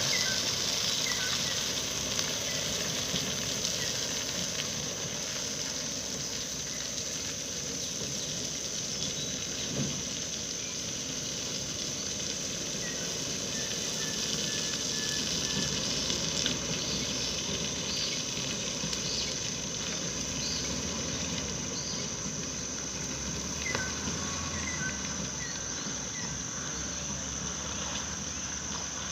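Outdoor ambience of insects droning steadily at a high pitch, with scattered short bird chirps and a low rumbling haze underneath.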